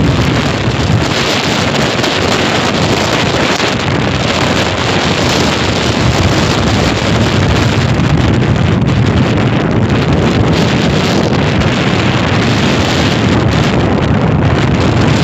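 Strong sea wind buffeting the microphone: a loud, continuous rumbling roar that swells and eases with the gusts.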